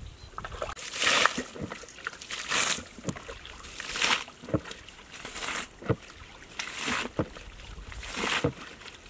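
Water being bailed out of a shallow muddy pool with a plastic basin: a scoop-and-splash repeated about every one and a half seconds, six times or so.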